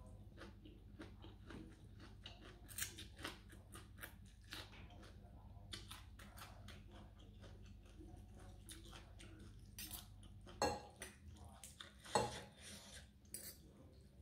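Fork and spoon clinking and scraping on a plate, with chewing of rice noodles and chicken feet. Two sharper clinks stand out, about ten and a half and twelve seconds in.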